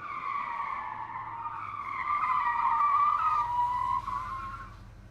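Car tires squealing in one long skid, wavering slightly in pitch, building and then fading away after about four seconds.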